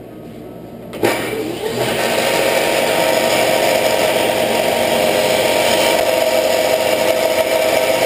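A combination belt-and-disc sander switches on about a second in, its motor spinning up, then runs steadily while the end of a poplar dowel is sanded against the disc.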